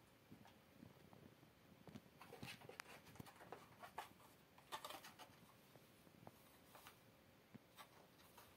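Near silence with faint, scattered scratchy clicks and rustles from a cat moving about in a small fabric pet bed, busiest in the middle few seconds.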